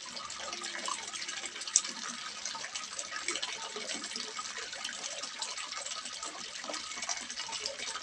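Water splashing and trickling steadily into a small fish pond, a continuous patter of small splashes, with one sharp click about two seconds in.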